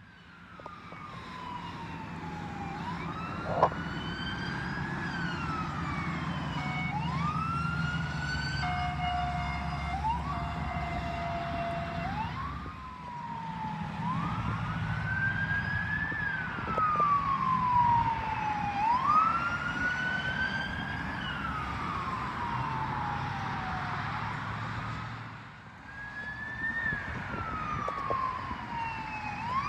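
Police car sirens wailing, slow rising and falling sweeps every few seconds with more than one siren overlapping, and a held steady tone for a couple of seconds about a third of the way in. Highway traffic rumbles underneath, with one sharp knock about three and a half seconds in.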